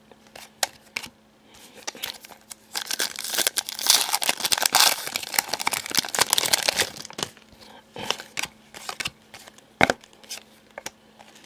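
Trading cards being handled, with crinkling and rustling and scattered light clicks, busiest in the middle.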